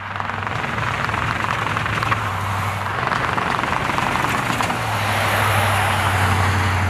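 2023 Ford F-Series Super Duty pickup driving past on a concrete test road: a steady low engine note under tyre and road noise, growing louder toward the end.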